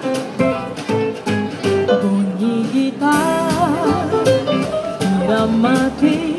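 Upbeat backing played on a Yamaha PSR-S950 arranger keyboard, with plucked guitar-like notes over a beat. About three seconds in a woman starts singing into a microphone, holding a wavering note.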